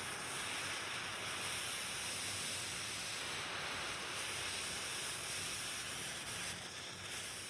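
A steady, high hiss, even and unbroken, that fades away at the very end.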